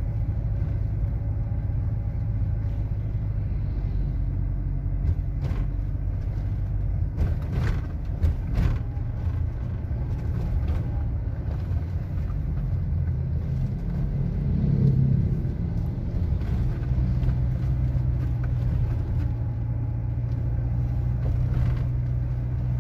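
Steady low rumble of a motor vehicle's engine and road noise while riding along a street among motorcycles. A few sharp knocks come about a third of the way in, and the rumble swells briefly about two thirds of the way through.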